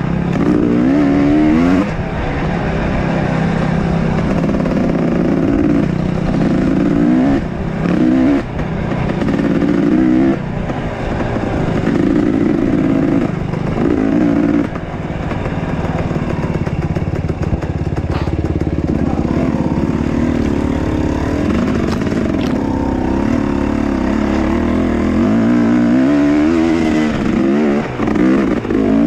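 Enduro motorcycle engine running hard and revving up and down with the throttle, with a run of rising revs near the end.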